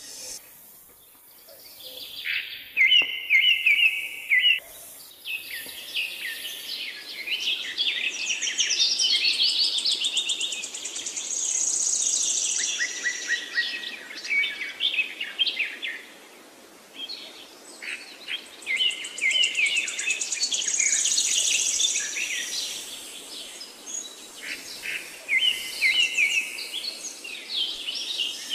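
Several songbirds chirping and trilling in overlapping high calls, with a short lull about halfway through.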